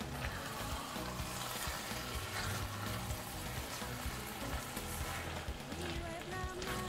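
Chakalaka vegetable relish sizzling in a stainless steel pot as a spoon stirs it through, over background music.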